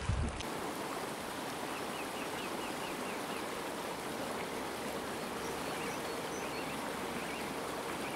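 Rushing river rapids: a steady, even rush of whitewater over boulders. A short run of faint high chirps comes about two seconds in.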